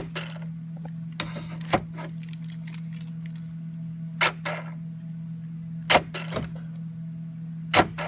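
Door lock mechanism of a 2003 Saturn Ion clicking as the lock is worked up and down, a sharp click about every two seconds, with keys jangling. A steady low hum runs underneath.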